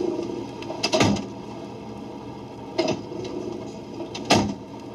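1960s electronic computer sound effect: a steady mechanical hum with a sharp clunk about every one and a half to two seconds, three in all, played back from a flexi-disc record.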